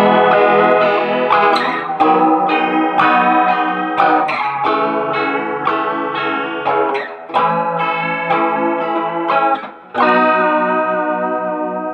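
Squier Bullet Telecaster electric guitar on its bridge pickup, strumming a run of ringing chords with chorus and reverb through a Roland Cube amp. The last chord, struck about ten seconds in, is left to ring and fade.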